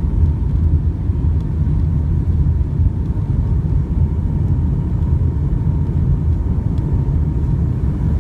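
Airliner cabin noise on final approach: a steady low rumble of the engines and airflow heard from inside the cabin, with a faint steady high tone over it.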